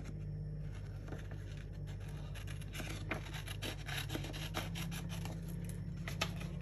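Small scissors snipping through white cartridge paper, a run of short cuts, with the sheet rustling as it is handled.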